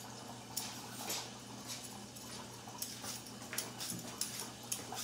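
Hand vegetable peeler shaving strips off a raw carrot onto a plastic cutting board: a run of short, crisp scraping strokes, about two a second.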